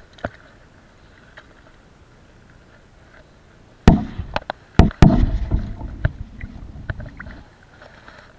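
Several sharp knocks close to the microphone about four to five seconds in, followed by a couple of seconds of deep rumbling handling noise as fishing gear is moved about on a concrete seawall.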